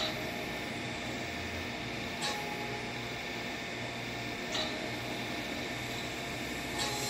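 Steady room noise: a constant hiss with a low hum underneath, broken by three faint short clicks, about two seconds in, halfway through and near the end.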